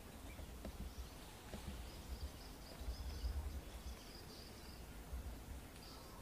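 Faint outdoor ambience: a low, uneven rumble with a run of quick, high chirps lasting about three seconds, starting about a second and a half in.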